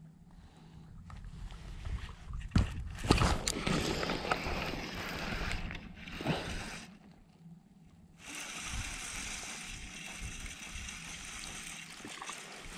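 Water sloshing and lapping against a kayak hull, with a few sharp knocks of gear being handled about two and a half to three and a half seconds in.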